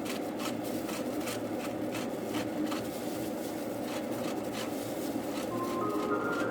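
Irregular light taps and clicks over a steady low background hum, with a few soft musical notes coming in near the end.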